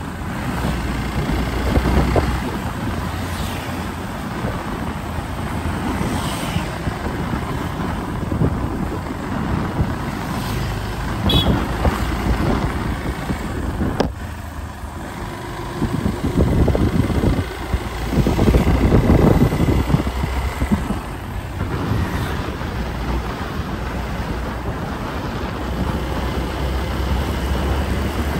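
Steady road and engine noise from riding along a street, with a heavy low rumble. The noise swells louder twice in the second half, and a brief high chirp sounds about a third of the way in.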